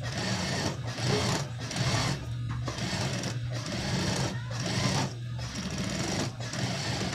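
Industrial sewing machine stitching through layered cotton scraps in short runs of about a second, stopping briefly between runs as the fabric is turned, over a steady low hum.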